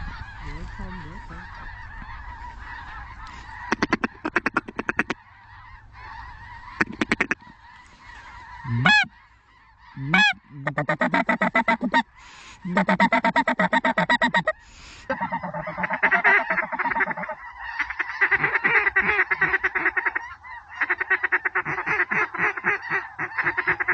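Geese honking and calling in rapid runs of notes, with a couple of swooping calls around nine and ten seconds in, and dense overlapping calling through the second half.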